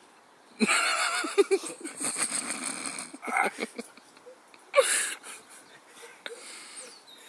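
A man with a lemon in his mouth making loud, rough wheezing and gagging noises for about two seconds, starting about half a second in, with a second short burst near five seconds. The noises are a reaction to the sour lemon.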